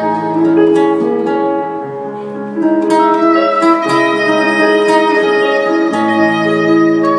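Band music without vocals: plucked string notes over held tones and a bass line, dipping briefly and then growing fuller about two and a half seconds in.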